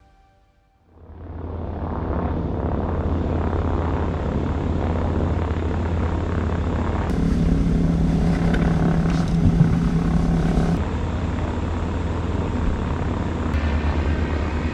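Propeller aircraft engine droning steadily, fading in about a second in. From about seven to eleven seconds a stronger, deeper pitched hum joins it and then cuts off abruptly.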